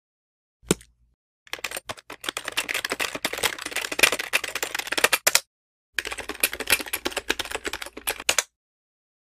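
Rapid, dense clicking in two long runs, the first from about a second and a half in to just past five seconds, the second from about six to eight and a half seconds, with a single click just before the first run.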